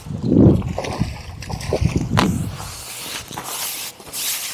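A hooked fish splashing and churning the water at the surface as it is played on a pole toward the landing net, with a few sharp splashes about one and a half to two seconds in, then quieter sloshing.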